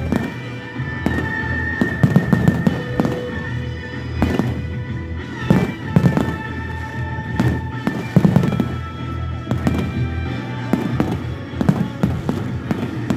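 Fireworks display: aerial shells bursting in many sharp bangs at irregular intervals, with music playing underneath.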